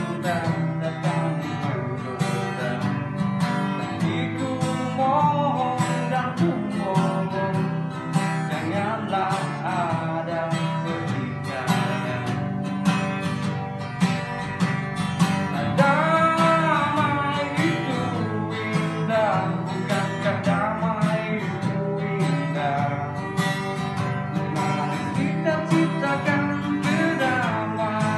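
A man singing an Indonesian-language song while strumming an acoustic guitar, his voice coming through a face mask.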